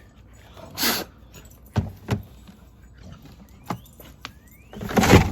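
Plastic Roomba parts being handled and fitted back together: a short scrape about a second in, a few sharp clicks and taps, and a louder scraping rattle near the end.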